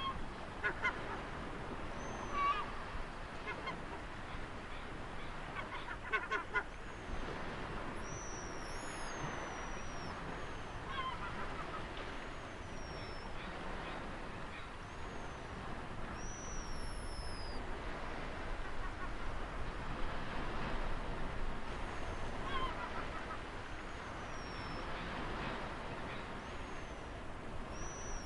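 Steady wash of ocean surf with birds calling over it: short, high, falling whistles repeated every second or two, and a few quick runs of lower calls.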